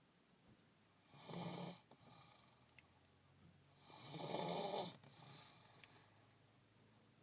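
A person snoring: two long snores about three seconds apart, the second the louder, each trailed by a fainter breath.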